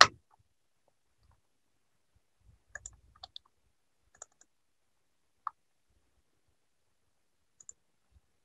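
Sparse, short clicks of a computer mouse and keyboard: a few close pairs and single clicks spread over several seconds, with near silence between them.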